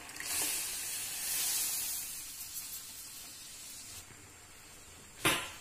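A pan of chopped pineapple boiling in water, with a bubbling hiss that swells over the first two seconds as ground coconut paste is poured in, then settles. A single sharp knock near the end.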